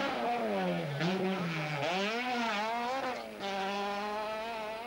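Opel Manta 400 rally car's four-cylinder engine revving hard under load. The revs drop about a second in, dip again, and climb back at about two seconds. They waver, then hold high and steady near the end.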